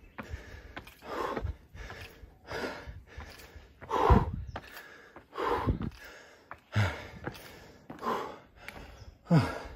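A man breathing hard after climbing more than 300 stairs, with a heavy breath about every second and a half, seven in all.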